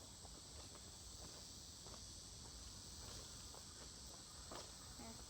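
Faint, steady, high-pitched insect chorus, with a few soft crunches of footsteps on the track's gravel ballast.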